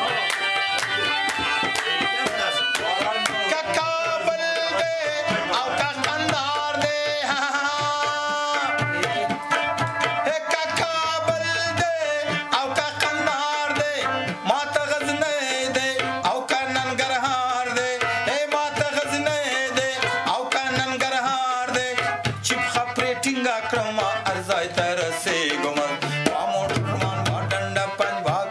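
Background music: fast hand-drum rhythm under a bending, ornamented melody.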